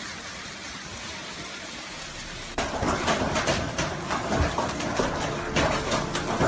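Heavy hailstorm: a steady hiss of hail and rain, then about two and a half seconds in a louder, dense clatter of many hailstones striking, with sharp individual impacts.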